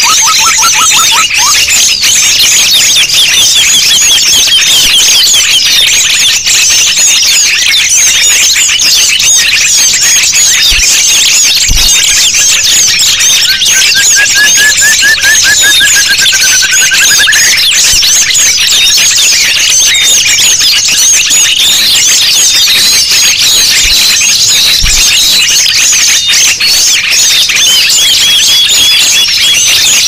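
A dense chorus of many small songbirds chirping and trilling at once: a 'burung ribut' bird-lure (pikat) mix made to draw wild birds in. A slower, lower trill rises slightly about halfway through.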